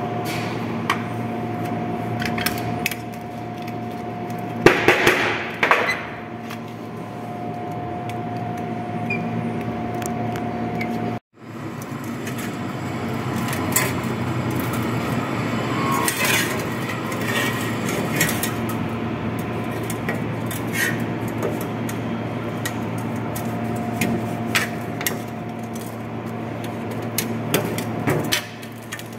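Thin sheet-steel duct segments being bent and fitted by hand on a steel workbench: scattered metallic clanks and knocks, with a cluster of louder strikes about five seconds in, over a steady shop hum.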